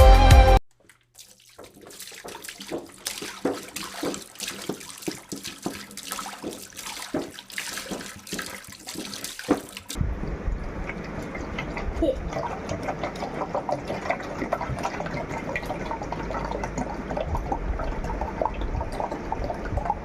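A run of small clicks and crackles, then from about halfway water sloshing and trickling with many small drips and splashes.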